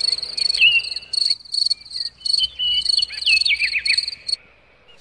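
Insects chirping in a steady run of high, evenly repeated pulses, with birds calling over them in short falling chirps. The sound stops about four seconds in.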